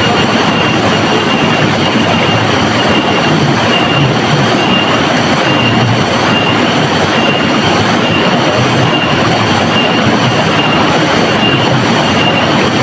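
River water rushing steadily: a loud, even wash of noise without breaks.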